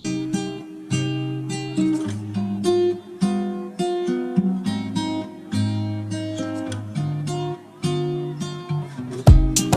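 Background music: acoustic guitar picking and strumming chords, with a beat coming in near the end.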